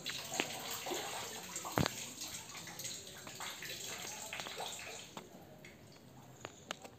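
Water pouring and dripping from cupped hands back into a stone tank of still water, a run of small splashes and trickles that thins to a few separate drips near the end.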